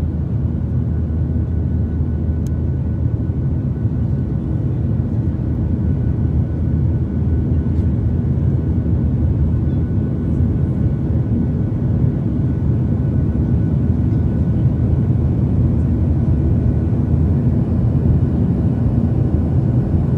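Cabin noise of a Boeing 737-800 climbing out just after take-off: its CFM56-7B turbofan engines at climb thrust and the rush of air, heard from a window seat over the wing as a steady deep rumble with a few faint high whines above it.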